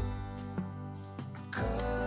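Background music: a slow song with plucked guitar notes, filling out about a second and a half in.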